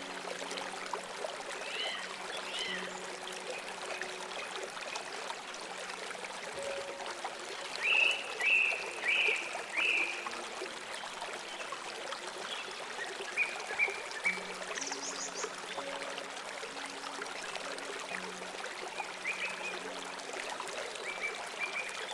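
Flowing river water running steadily, with birds chirping in short bursts a few times, loudest about eight to ten seconds in. Soft, sustained background music notes are held underneath.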